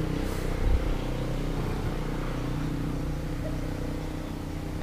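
A motor vehicle's engine running steadily, a humming drone that fades slowly, with a brief low bump just under a second in.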